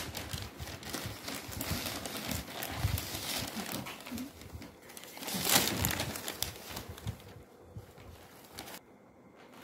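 Newspaper crinkling and cotton saree cloth rustling as they are lifted and unfolded by hand, loudest a little past halfway and dying away near the end.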